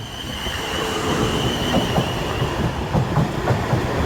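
Class 450 electric multiple unit arriving, its rumble growing louder, with a thin high whine that fades out about halfway through and wheels knocking over rail joints in the second half.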